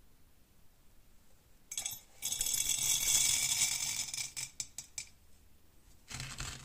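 Steel bearing balls poured by hand into a ceramic crucible: a dense metallic clattering for about three seconds that thins into a few last clicks. A second short clatter with a low knock follows near the end.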